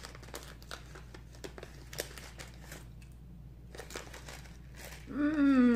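Plastic wrapper of a share-size bag of Skittles crinkling and tearing as it is pulled open by hand, a scatter of small crackles. Near the end a voice calls out one drawn-out, falling sound.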